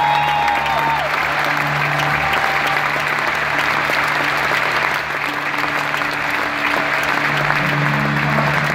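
Large arena crowd applauding steadily, with soft sustained music from the sound system underneath.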